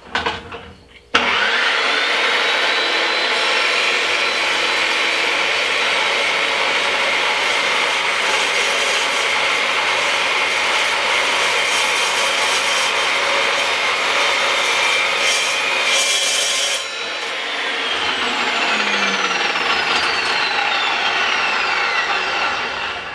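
Makita LC1230 cold cut metal saw starting about a second in and cutting through quarter-inch steel angle iron, a loud, steady sawing for about fifteen seconds. Then the sound drops, and the blade's whine falls in pitch as the saw winds down.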